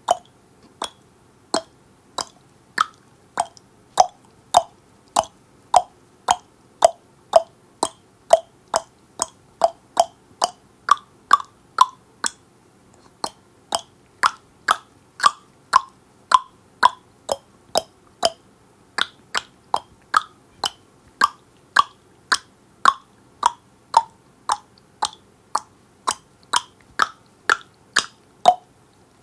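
Tongue clicking: a person clicks the tongue against the roof of the mouth in a steady series of sharp, hollow pops, about two a second. The pitch of the pops shifts up and down as the mouth changes shape, with a short pause about halfway through.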